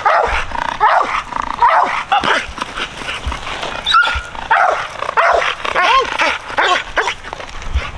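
Dog barking over and over in short, irregular calls, agitated at a bite pillow hung out of its reach.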